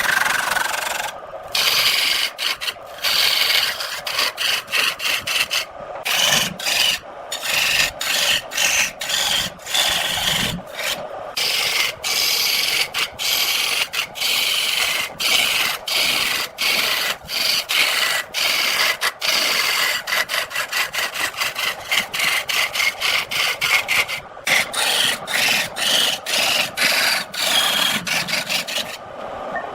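Turning tool cutting into wood spinning on a lathe: a scraping, rasping noise in many short passes with brief breaks between them.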